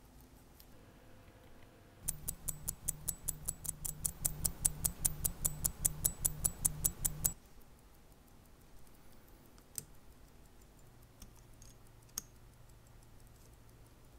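Seiko 6309 automatic watch movement ticking, close and loud, about six even ticks a second: the balance beating, the movement running. The ticking starts and stops abruptly, and a couple of faint small clicks follow.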